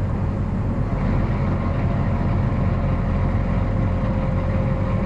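Farm tractor engine running steadily with its hydraulics pressurised to the cultivator, while a newly fitted hydraulic hose is checked for leaks; a faint steady whine sits over the low engine rumble.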